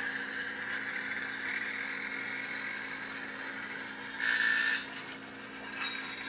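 The LokSound sound decoder in an HO-scale Bowser model of a Brill streetcar, playing a steady running hum through its small speaker. About four seconds in comes a brief, louder sustained sound lasting about half a second, and near the end a short click.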